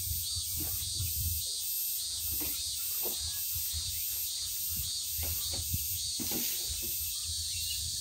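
Cicadas chirring in an even pulsing chorus, about two pulses a second, over a low rumble of wind.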